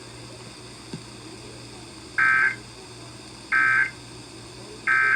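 Emergency Alert System End of Message (EOM) data bursts: three short two-tone digital squawks about 1.3 seconds apart, the first about two seconds in, marking the end of the alert. Under them runs a faint steady hum.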